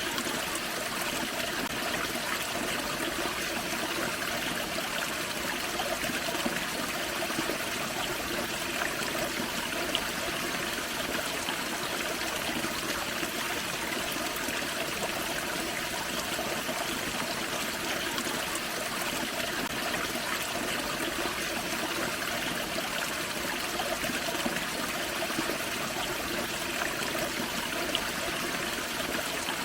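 A forest creek spilling over a small waterfall: steady rushing and trickling water.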